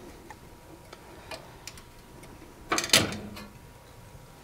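Metal clicks and knocks as a ceramic-hob radiant hotplate element is lifted off its brackets and out of the cooker's metal chassis. A few light ticks come first, then a louder double clatter about three seconds in.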